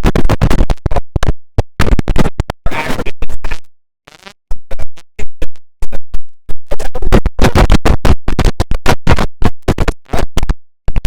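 Music put through audio effects, chopped into rapid stuttering cuts that sound like record scratching. It breaks off into a short near-silent gap about four seconds in, then the stutters resume.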